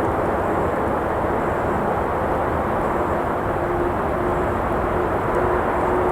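Steady rush of road traffic. A faint hum holds one pitch through the second half, and a few faint crackles come from a campfire.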